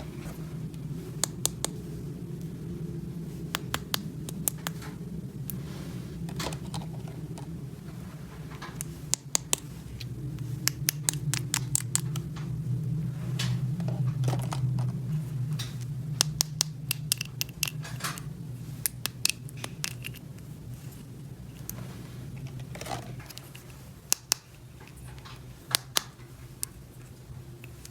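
Small plastic toy pieces being handled and fitted together: irregular sharp clicks and taps, with some scraping, over a steady low hum.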